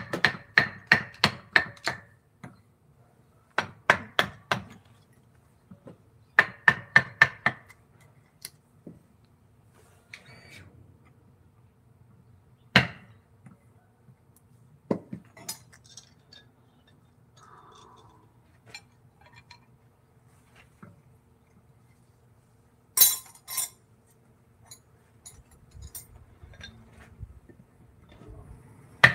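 A hammer tapping a woodcarving chisel in three quick runs of about six strikes a second, each strike with a short metallic ring, followed by a few scattered single knocks and a sharp clatter about 23 seconds in.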